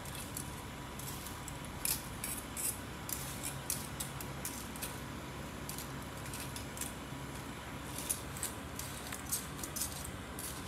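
Metal kitchen tongs clicking and scraping against a thin aluminium ramen pot as spaghetti is pushed down into the water. The clicks come in irregular clusters, over the steady low noise of the gas burner.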